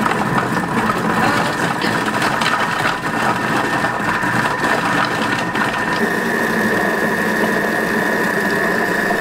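Vorwerk Thermomix food processor running steadily with a high whine, its blade chopping peeled apple pieces at a low speed setting of about 3.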